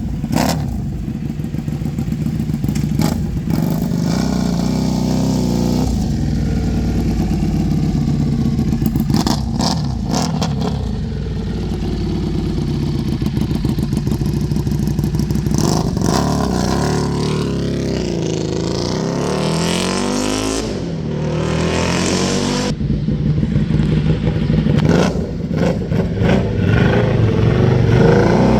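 Buell Hammerhead 1190's V-twin engine, fully warmed up, idling and being revved through a Kaplan Cycles stage 1 kit with a polished stainless steel full exhaust. It takes several short blips of the throttle, then a longer rise and fall of revs past the middle, and more blips near the end.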